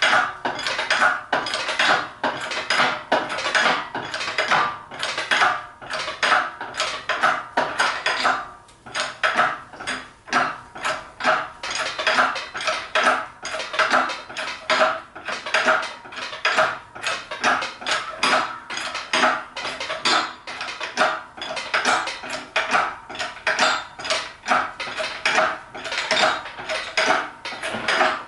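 Shop engine crane clanking and rattling, metal on metal, in a quick repeated rhythm of strokes as it is worked under the weight of an engine.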